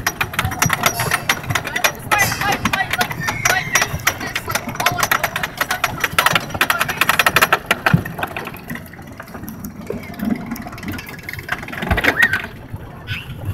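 The Beast wooden roller coaster train climbing its chain lift hill, the anti-rollback clicking fast and steady; about eight seconds in it thins out and grows quieter as the train nears the crest.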